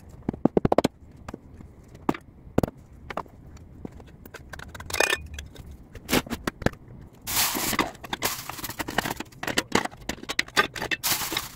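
Aluminium sand casting being dug out of the foundry sand: a quick run of sharp knocks, then scraping and clicks. From about seven seconds in come longer stretches of hiss and crackle as the still-hot casting is quenched in water.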